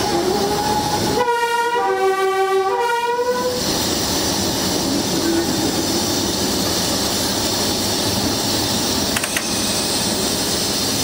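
Locomotive's two-tone horn sounded high, low, high for about two and a half seconds, over the steady running noise of the engine and wheels heard inside the cab.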